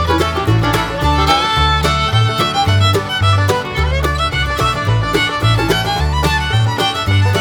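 Background music: upbeat bluegrass with fiddle, a plucked bass line and a steady beat.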